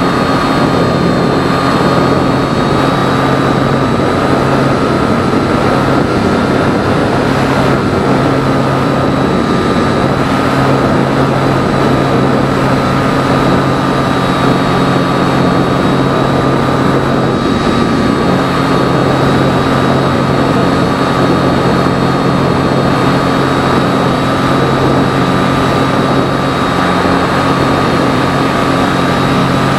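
Phoenix 2000 RC glider's electric motor and propeller running steadily in flight, heard through the onboard camera: a steady whine that wavers slightly in pitch, over a constant rush of air.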